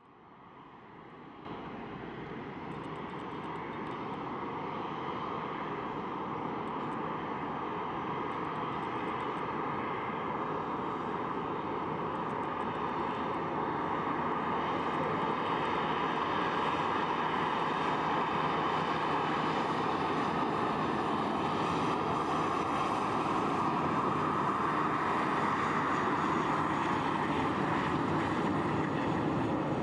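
Boeing 737 jet airliner's CFM56 turbofan engines running at low taxi power as the plane taxis past, a steady jet hum. It fades in from silence and grows louder over the first dozen seconds, then holds steady.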